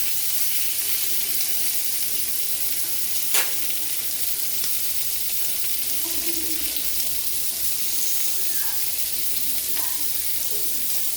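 Chicken sizzling on an indoor electric grill, a steady frying hiss, with a single sharp click about three seconds in.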